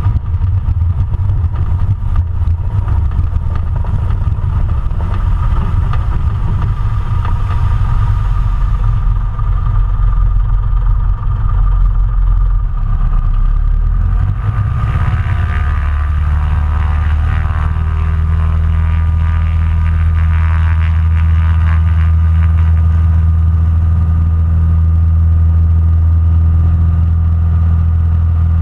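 The 135 hp engine and propeller of a Cessna 140 floatplane running hard on the water, with wind rumbling on the microphone. About halfway through, the sound settles into a steady, even drone.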